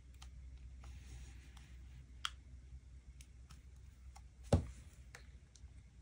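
Quiet handling of planner supplies on a desk: a few light clicks and taps, with a louder knock about four and a half seconds in.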